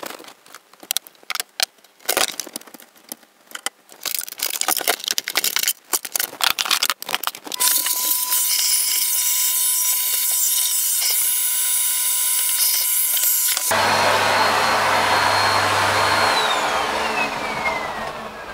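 Quick clicks and rattles of computer parts being handled. About seven seconds in, a vacuum cleaner starts and runs steadily with a whine. Its sound changes about six seconds later, and near the end its whine falls in pitch as it winds down.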